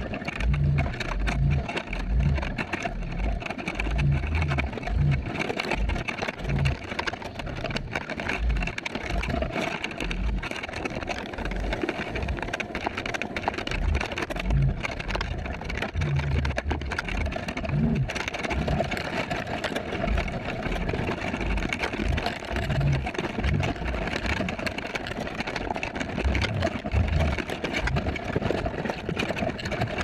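Underwater sound of crabs crowding a crab trap and feeding on the bait, sped up ten times: an eerie, steady hum with irregular low thumps throughout.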